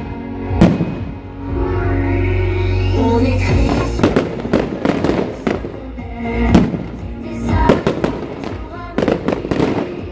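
Aerial firework shells bursting in quick succession, sharp bangs and crackles, one just under a second in and then thick and fast from about four seconds in, over loud music.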